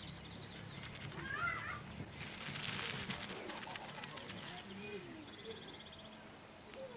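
Quiet garden ambience with a bird chirping briefly about a second and a half in, a soft rustling hiss shortly after, and a short faint buzz a little later.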